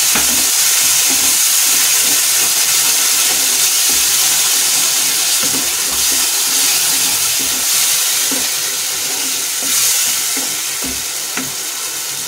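Tomato purée sizzling in hot oil with onion-garlic masala in a non-stick kadhai, a steady, loud frying hiss that eases a little near the end. A wooden spatula stirs it, with a few soft knocks against the pan.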